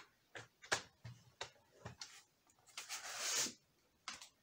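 Cardstock being handled on a plastic paper trimmer while it is scored: a string of sharp clicks and taps, then a short rasping slide about three seconds in, and a few more clicks near the end.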